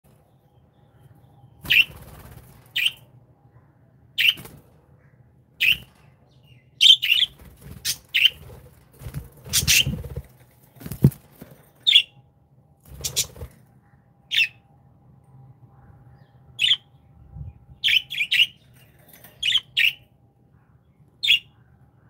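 Budgerigars chirping: short, sharp single chirps about once a second, some in quick pairs. A few dull rustles and a click come through in the middle.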